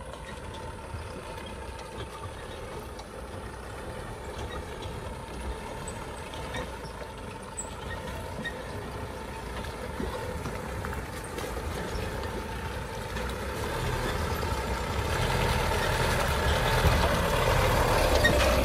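Tata 407 4x4 mini truck's diesel engine running as the truck drives slowly over a muddy dirt track toward the listener, growing steadily louder until it passes close by near the end.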